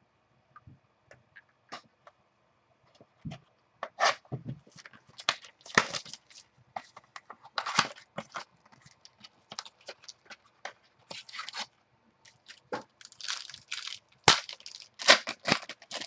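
Foil wrapper of a baseball card pack crinkling and tearing as it is opened by hand: a run of quick, uneven crackles and clicks, sparse at first and busy from about four seconds in.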